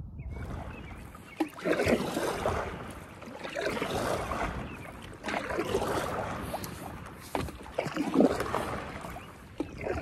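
Stand-up paddleboard paddle strokes in river water: a splash and swish of the blade about every two seconds, several strokes in a row.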